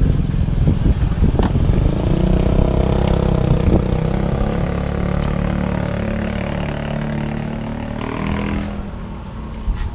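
Street traffic: a motor vehicle's engine running close by, loudest in the first few seconds and slowly fading away, with a couple of sharp clicks.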